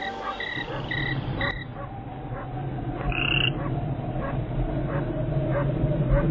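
Frogs croaking, short calls repeating about twice a second, over a steady low hum; a brief high tone sounds about three seconds in.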